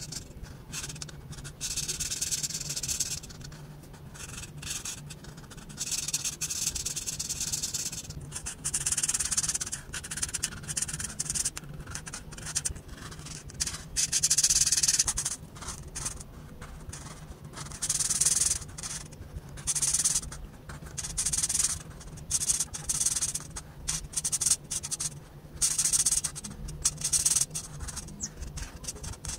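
Felt-tip marker scratching across paper as an area is coloured in, in strokes of about half a second to two seconds with short pauses between, quicker and shorter strokes in the second half.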